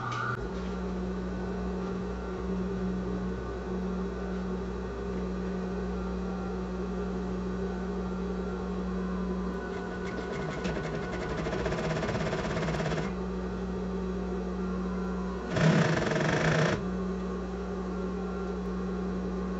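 Sewing machine running steadily, topstitching the zipper channel of a synthetic-leather bag at a long stitch (setting 5). A louder noise lasting about a second breaks in near the end before the steady running resumes.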